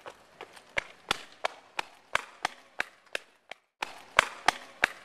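Quick footsteps, sharp and evenly spaced at about three a second, with a brief pause a little past halfway and louder steps near the end.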